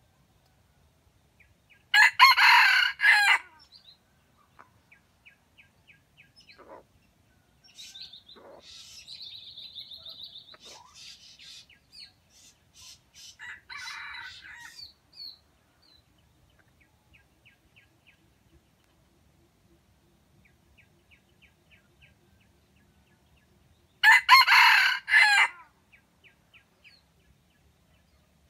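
Red junglefowl (wild chicken) rooster crowing twice: a short crow about two seconds in and another near the end. Fainter chirps from other birds come in between.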